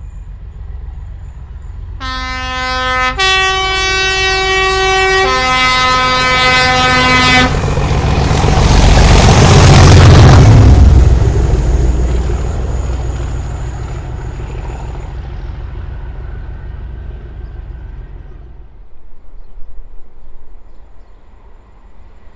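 Locomotive two-tone horn sounding low, high, then low again for about five seconds. The train then passes close by, its noise loudest about ten seconds in and fading away over the next several seconds.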